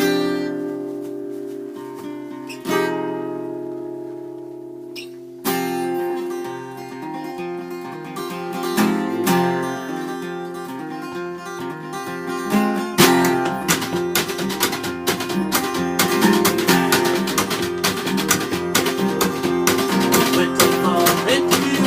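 Acoustic guitar playing a song's intro: a chord rings out at the start and another about three seconds in, steady playing begins about five seconds in, and fuller rhythmic strumming comes in about thirteen seconds in.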